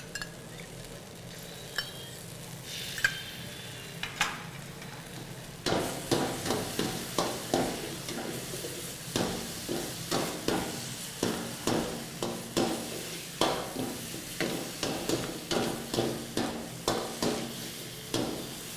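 Fried chicken lollipops and capsicum being stir-fried in sauce in a kadai: a ladle scrapes and tosses in the pan about twice a second over a steady sizzle, starting about six seconds in. Before that, a few light clicks of a spoon against a small steel cup.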